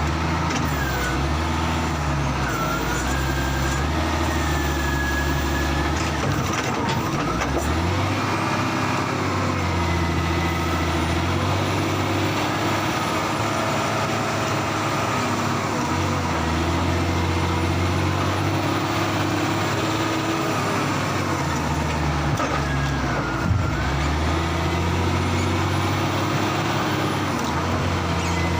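Heavy diesel engines of the wheel loader and logging truck running at working load. The engine note steps up and down in pitch several times as they rev, with faint whines gliding above it and a single short knock about 23 seconds in.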